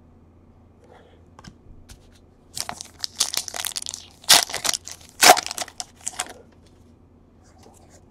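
Foil trading-card pack wrapper crinkling and tearing as it is pulled open by hand. It begins about two and a half seconds in, is loudest in two sharp bursts a little after four and five seconds, and stops after about six seconds.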